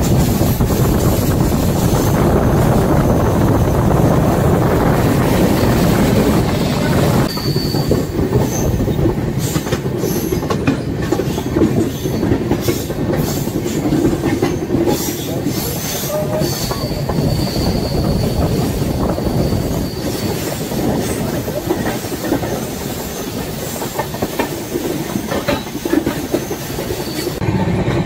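Konark Express passenger train running, heard from inside the coach: a steady rushing rumble with wheels clattering over rail joints. The rumble is heavier for the first seven seconds or so, then eases. Brief high wheel squeals come about eight seconds in and again around the middle.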